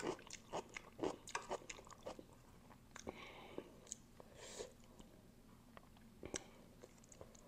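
Close-miked mouth sounds of a person eating spicy noodles: wet chewing clicks, dense for the first two seconds and then sparser, with one sharp click about six seconds in.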